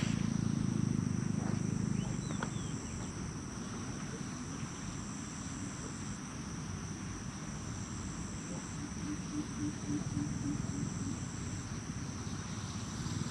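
Insects, likely crickets, trilling steadily in high pitched tones. One of the tones cuts in and out every couple of seconds. Underneath is a low background rumble.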